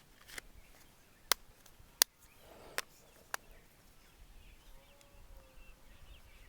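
Five sharp clicks and taps over about three seconds as a smartphone's plastic back cover is fitted and pressed into place.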